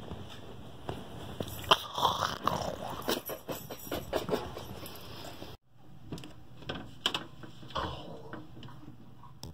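Close-up eating noises: a person bites and chews a pizza roll with their mouth alone, with wet smacking and snuffling breaths near the microphone. The sound cuts off for a moment about halfway through, then the munching carries on.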